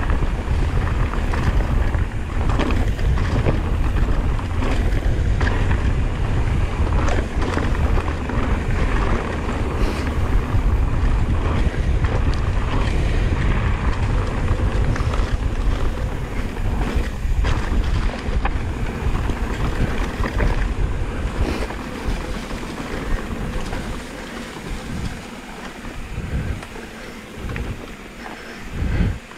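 Wind rushing over the microphone of a mountain bike descending a rough dirt trail, with tyre noise and a steady run of clicks and knocks from the bike rattling over the ground. The wind rumble eases over the last several seconds as the pace drops.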